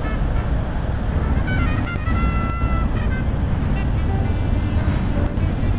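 City street traffic noise: a steady low rumble of passing vehicles, with short pitched tones such as horns or squeals sounding over it partway through.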